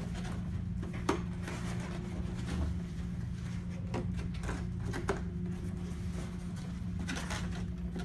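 Corrugated cardboard being handled: a display shelf's tabs pushed and folded into slots, with a few sharp clicks and scrapes about a second in and around four and five seconds, over a steady low hum.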